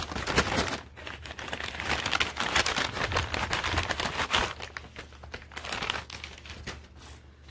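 Brown paper gift bag crinkling and rustling as it is handled and opened, in a dense run of irregular crackles that thins out near the end.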